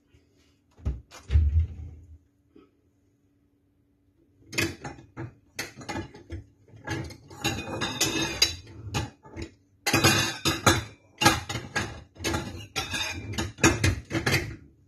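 Ceramic dishes clattering and clinking as they are picked up and handled, in a long busy run. It is preceded by a single dull thump about a second in.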